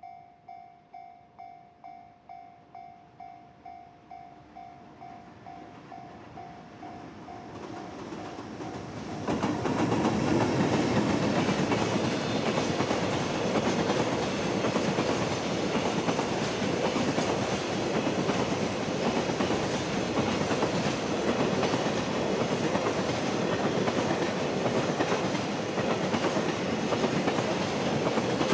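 A level-crossing warning bell rings in even pulses about twice a second and fades out. A freight train then comes in loud about nine seconds in and runs past steadily, with wheels clattering over rail joints.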